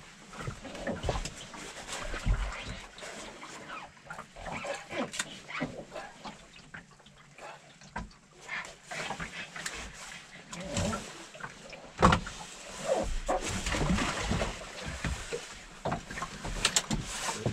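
Irregular knocks, clicks and scrapes of gear being handled on a fishing boat, with one sharp knock about twelve seconds in.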